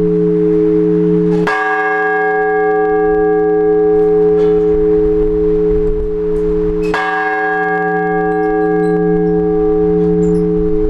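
A large church bell struck twice, about five and a half seconds apart, its deep hum ringing on between the strokes. It is the slow single-bell strokes of the blagovest that call people to the Orthodox all-night vigil.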